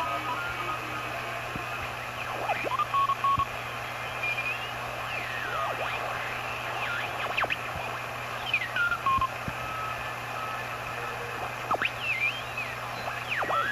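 Heathkit SB-310 shortwave receiver's speaker giving steady band noise and hiss while the main tuning dial is turned across the 20-meter amateur band. Short whistles and garbled signals glide up and down in pitch or hold briefly at one note as stations drift through the passband.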